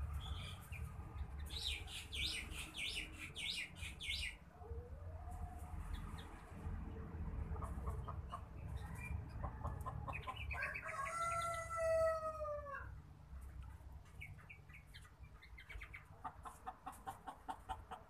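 A rooster crows once, one long arched call about eleven seconds in, the loudest sound here. Earlier comes a quick run of high bird chirps, and a low rumble runs underneath.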